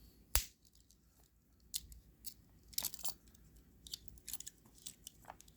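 Swiss Army pocketknives (Victorinox Spartans) being handled, with a sharp snap of a blade or tool about half a second in, then scattered light clicks and taps.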